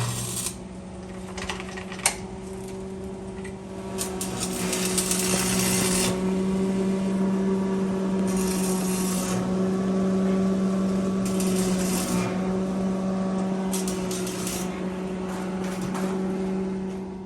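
Welding on a vehicle frame: a steady machine hum with four bursts of hissing crackle spaced a few seconds apart.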